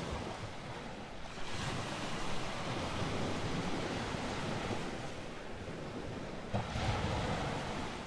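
Ocean waves: a steady rush of moving water that swells about one and a half seconds in and again, more sharply, near the end.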